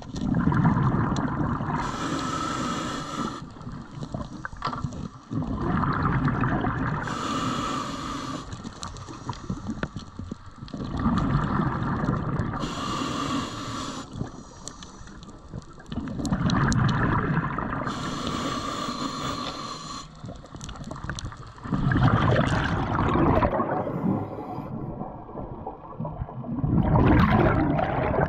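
A diver breathing underwater through a scuba regulator, in a steady cycle about every five to six seconds: a hiss on each inhale, then a loud bubbling rumble as the breath is let out.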